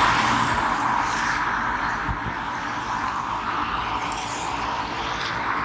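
A car driving past on the road, its tyre noise a steady rush that is loudest at the start and slowly fades.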